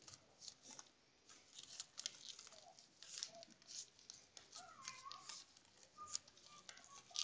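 Faint rustling and crinkling from small objects handled at a desk: short, irregular scratchy sounds close to the microphone.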